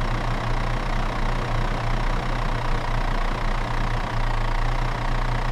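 A rescue machine's engine running steadily at idle, a low constant hum with an even rumble over it.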